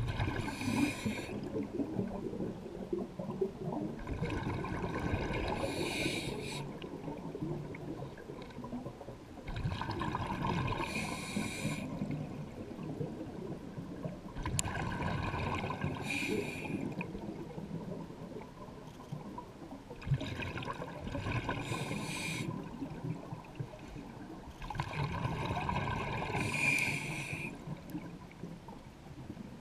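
Scuba diver breathing through a regulator underwater: a hissing breath followed by a gurgling rush of exhaled bubbles, repeating in a steady rhythm about every five seconds.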